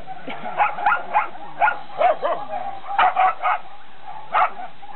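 Dogs barking in quick, high-pitched bursts, with a short lull about three and a half seconds in before one more bark.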